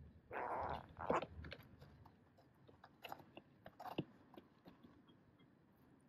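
Hooded crows pecking in snow: a crunchy scrape about half a second in, then scattered sharp beak taps and crunches that grow sparser.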